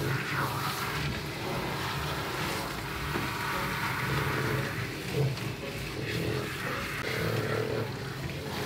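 Water from a handheld shower head spraying onto a wet French bulldog's coat, a steady rushing hiss.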